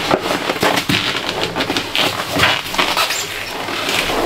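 Continuous scuffing, rustling and light knocking, many small clicks in quick succession: someone moving through the canvas doorway while carrying a small steel wood stove.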